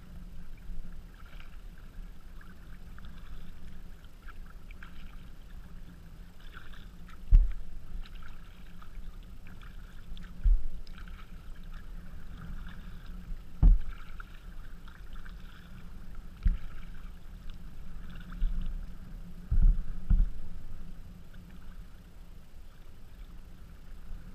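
Water lapping and splashing around a kayak on choppy water, with a dull low thump against the hull every few seconds, six in all.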